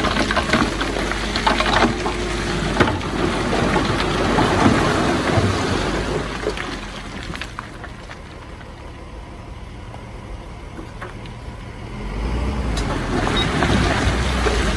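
Heavy diesel earthmoving machinery running, with knocks and clanks over the engine noise. The sound drops away for several seconds in the middle and comes back louder with a low rumble near the end.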